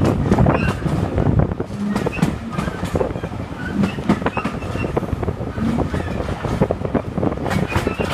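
Railway carriage running along the track: a steady low rumble with irregular clacks and knocks from the wheels and coachwork, and a few short squeaks.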